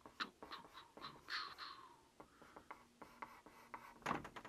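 Marker pen drawing on a sheet: a string of short scratchy strokes and light taps of the tip, faint.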